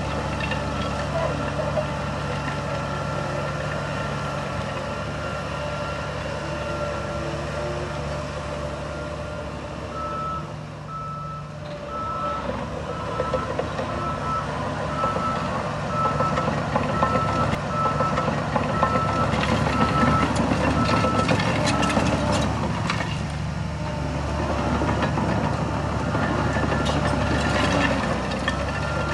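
Diesel engines of heavy earthmoving machines running, with a reversing alarm beeping at an even pace of about one beep a second for a stretch in the middle.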